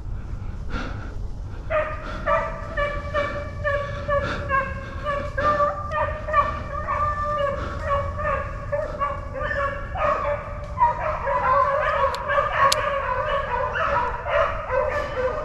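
A pack of beagles baying on a rabbit's trail, in a chorus of repeated calls. The chorus starts about two seconds in and grows thicker around ten seconds in as more dogs give voice.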